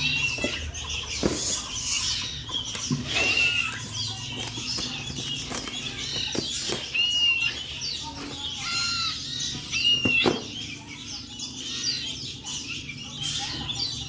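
Woven bamboo basket rustling and knocking as it is handled and opened. Short high chirps from nestling songbirds break in about five times.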